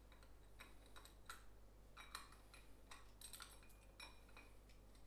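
Faint light metallic clicks and ticks as the screws and brass cover of a Vetus marine diesel's raw-water impeller pump are undone by hand.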